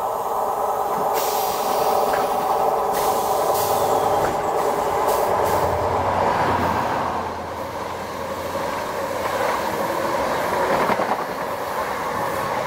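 Electric multiple unit pulling away from the platform close by, a steady whine over its wheel noise, with a second train coming through on the next line near the end.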